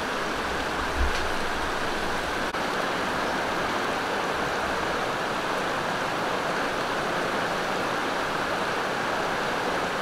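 Mountain stream rushing over rocks and rapids: a steady, even rush of water.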